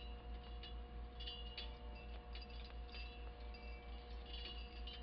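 Strands of flattened bottle caps hanging from a wire ring, clinking and tinkling against each other in many small scattered clinks as the hanging piece is handled. Under them runs a steady low electrical hum.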